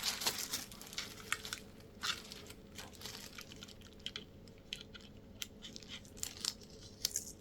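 Plastic packaging crinkling and rustling in irregular handling noises as ring lights are unwrapped, busiest in the first couple of seconds and then sparser.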